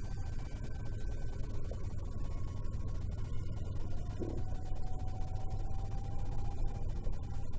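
Wind buffeting the microphone in a steady low rumble, with a faint thin steady whine joining about halfway in.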